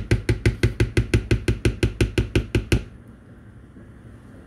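Rapid, even knocking, about eight strikes a second, stopping abruptly a little under three seconds in: a spatula being tapped hard to shake off clinging cream cheese and Cool Whip mixture.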